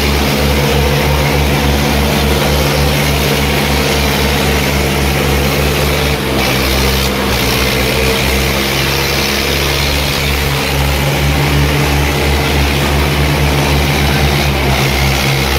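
Diesel tractor engine running steadily and loud, with a deep, evenly pulsing throb; its note shifts slightly about six seconds in.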